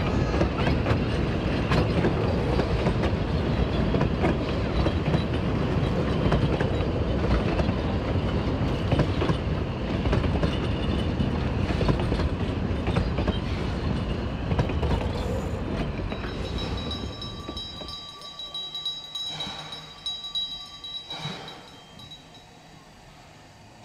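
Puffing Billy's narrow-gauge passenger carriages rolling past at close range, their wheels running on the rails in a loud, steady rumble that fades away after about seventeen seconds as the last van passes.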